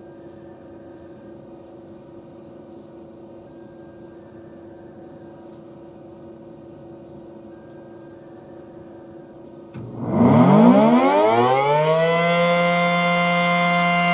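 A steady faint hum, then about ten seconds in an ACA P-10 electromechanical siren starts up: its pitch winds up quickly over about two seconds and levels off into a loud steady tone, the start of a full alert test signal.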